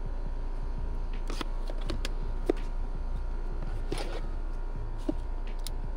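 Cardboard box being opened and a metal disconnect box slid out of it: a few light, separate scrapes and taps over a steady low hum.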